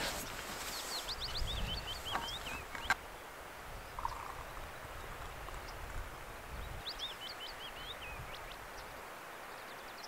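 A small songbird singing two short phrases of quick, high chirping notes, one about a second in and another near seven seconds, with a single sharp click about three seconds in.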